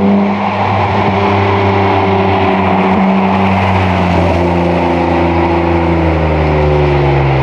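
BMW E30's swapped M52B28 2.8-litre straight-six engine running steadily through its custom exhaust, its pitch easing down slowly over the last few seconds.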